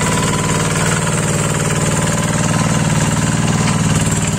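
Two-wheel hand tractor (Quick G1000 with a Kubota single-cylinder diesel engine) running steadily, with a rapid even firing beat, as it works through wet paddy mud.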